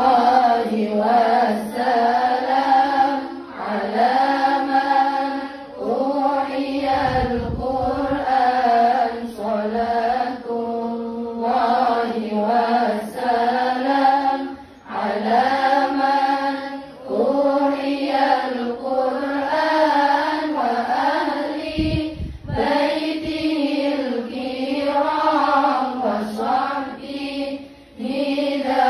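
A woman singing sholawat, an Islamic devotional song in praise of the Prophet, solo into a microphone, in long held notes that bend up and down, with short breaths between phrases.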